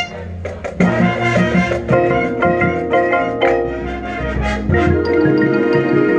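High school marching band playing, with the mallet percussion of the front ensemble (marimba, xylophone) striking quick notes over held wind chords.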